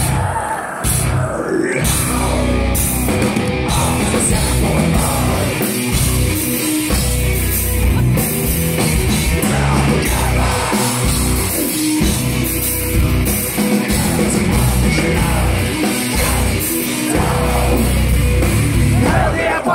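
A heavy metal band playing live, loud and without a break, with heavy drums and bass and a singer's voice on a microphone.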